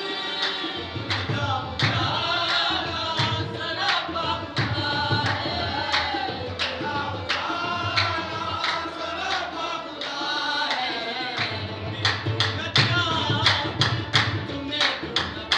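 Qawwali-style devotional singing: men's voices over harmonium with a sharp percussive beat, busier in the last few seconds.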